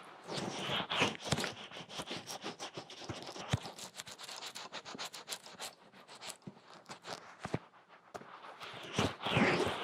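Ear-massage ASMR: fingers rubbing and scratching at close range on a binaural microphone's ears, making an irregular stream of crackly scratches and quick taps.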